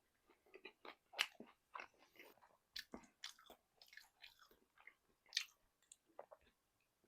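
Close-up chewing and biting of crunchy fried chicken: a run of irregular crackly crunches, with two louder bites, about a second in and a little past five seconds.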